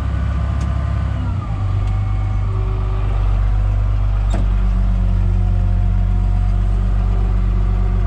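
Case tractor's diesel engine running steadily under load from a cultivator-seeder, heard from inside the cab. There are a few short clicks and a sharper knock about four seconds in, after which the engine note holds a new steady tone.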